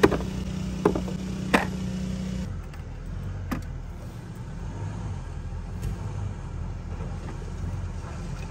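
Steady drone of a work engine from a water-main repair crew, which sounds like a generator running. Its note shifts about two and a half seconds in, and a few sharp clicks come in the first two seconds.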